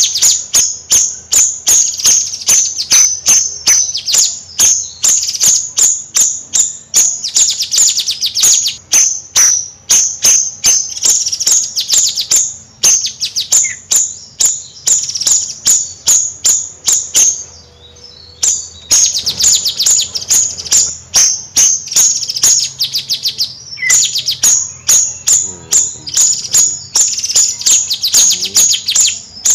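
Bayeman songbird singing a rapid, high, chattering song: sharp chips several times a second, run together in fast trills, with one short pause past the middle.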